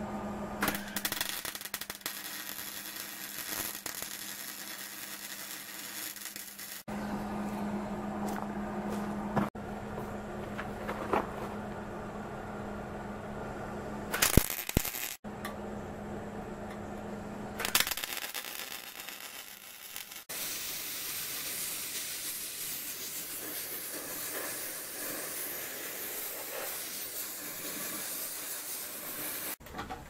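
A run of short, abruptly cut clips of steel being worked: an angle grinder grinding the steel to fit, then an electric arc welder crackling and hissing as it welds the parts in place.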